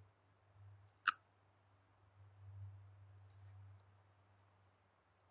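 Quiet handling of cooked fish by hand, with one sharp click about a second in and a few faint small crackles later, over a low steady hum.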